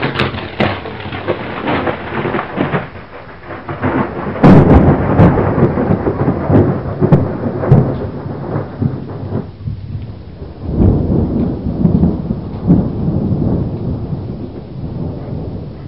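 Thunderstorm: rolling thunder with a sharp, loud crack about four and a half seconds in, further rumbles, then dying away near the end.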